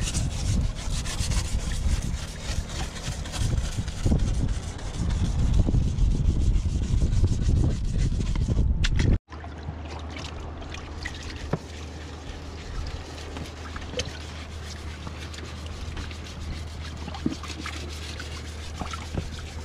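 Hand scrubbing of a fibreglass sailboat's dirty topsides with brushes and scourers: repeated scratchy rubbing strokes. There is a sudden cut about nine seconds in. After it the scrubbing is quieter, over a steady low hum.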